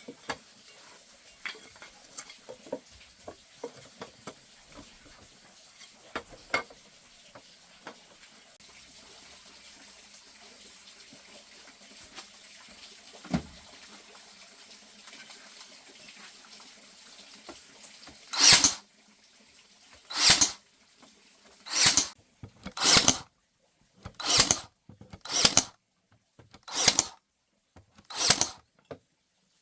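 Faint scattered clicks and light knocks, then, about two-thirds of the way in, a hand tool begins working bamboo in eight separate rasping strokes, roughly one a second, with a short pause between each.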